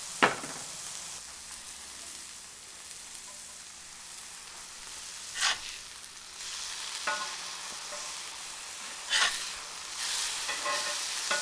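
Ground tri-tip burger patties sizzling steadily on a hot flat-top griddle, with a few sharp knocks and ringing clinks over it, the loudest about a quarter second in.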